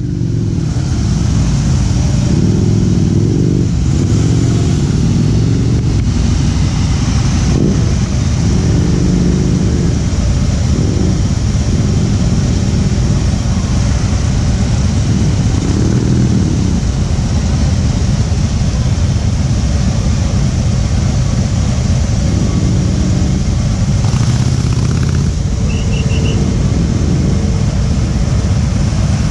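A large group of motorcycles, mostly Harley-Davidson V-twin cruisers, running together close by with a steady, loud, deep rumble. Now and then one or more engines are revved, so the pitch rises and falls.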